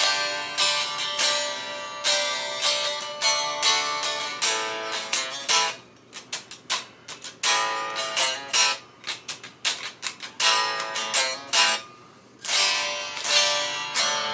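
Freshly strung Telecaster-style solid-body electric guitar played unplugged, with no amplifier: strummed chords and picked notes, with brief lulls around six and twelve seconds in.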